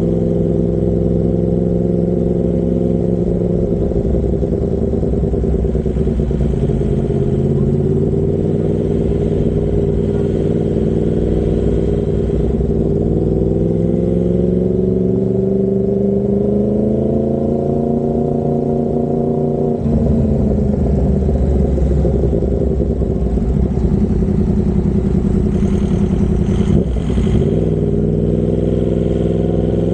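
Yamaha MT-10's crossplane-firing inline-four running through an SC Project carbon-titanium exhaust while riding. Its note holds steady, then climbs smoothly for several seconds, drops suddenly about two-thirds of the way in, and dips briefly again near the end.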